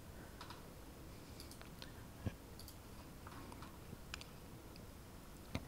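Two faint computer mouse clicks, about two seconds in and again near the end, over quiet room tone with a few smaller ticks.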